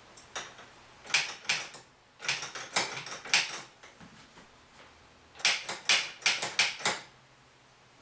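Pinball diverter solenoid's piston being worked by hand in and out of its freshly cleaned sleeve: quick clusters of small clicks and scrapes, three main runs of them.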